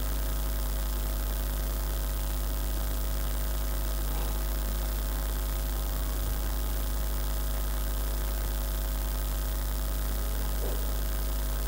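Steady low electrical mains hum with a faint hiss over it, unchanging throughout.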